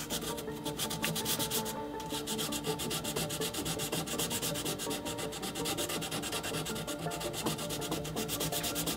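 Sandpaper wrapped on a popsicle stick rubbed back and forth over a carved wooden knife handle, in quick, even strokes several a second, smoothing out the scratches left by the files.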